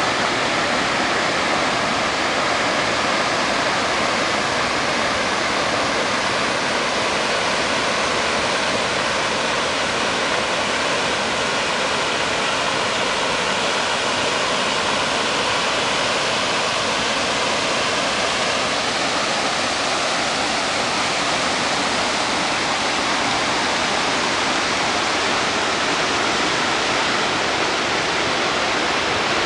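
Water pouring over a wide mill-dam spillway and rushing down a shallow, rocky riverbed: a steady, loud, unbroken rush.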